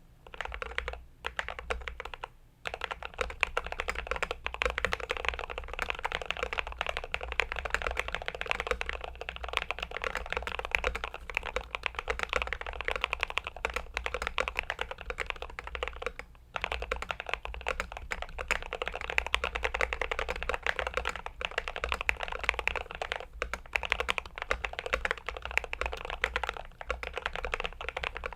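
Continuous fast typing on a Glorious GMMK Pro aluminium-case mechanical keyboard, a dense run of key clacks. Brief pauses come just after the start and a little past halfway.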